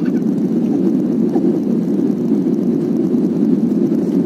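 Steady cabin noise of a jet airliner climbing after takeoff: engine and airflow noise heard from inside the cabin, an even low rumble that holds constant.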